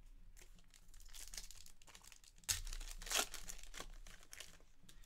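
Foil trading-card pack wrapper crinkling and tearing as it is ripped open by hand, with two sharp rips about halfway through.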